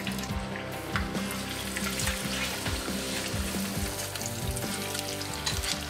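Battered crappie fillets deep-frying in a pan of hot oil, with a steady sizzle and crackle. Background music plays underneath.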